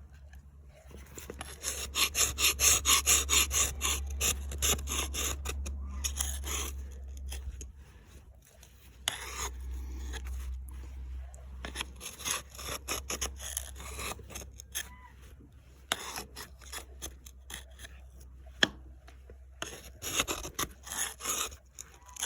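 Hand scraping of rust and grime from the top of a piston in the Rumely 6A engine's cylinder, metal on metal. It comes as a fast run of strokes at first, then in shorter, looser runs, over a low steady hum.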